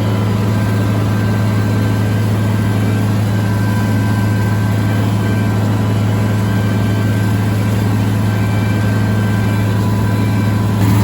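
Farmall 1206 tractor's turbocharged six-cylinder diesel running at a steady, loud drone while driving a bush hog rotary cutter.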